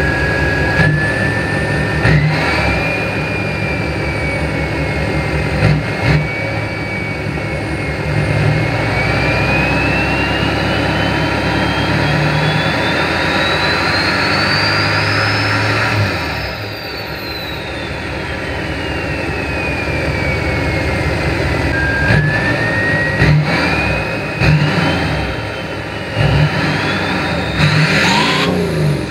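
Nissan Titan XD's 5.0-litre Cummins V8 turbo-diesel revved in place through a new 4-inch exhaust, with its emissions equipment deleted and the engine tuned. There are short blips early on and again near the end, and a long rev held through the middle. A high whistle climbs while the revs are held and glides back down after it lets off.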